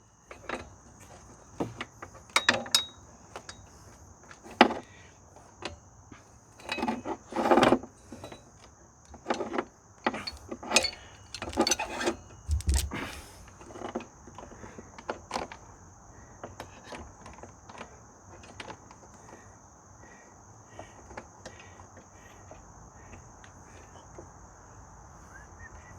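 Metal drive chain of a 1990 Suzuki LT250S ATV clinking and clanking in uneven clusters as it is worked over the sprockets, busiest in the first half and sparser later. Insects chirr steadily and high throughout.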